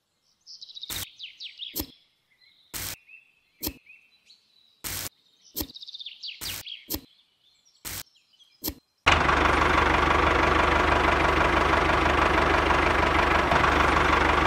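Faint bird chirps with a dozen scattered sharp clicks. Then, about nine seconds in, a loud, steady motor noise with a low hum starts abruptly: the miniature tractor's motor running.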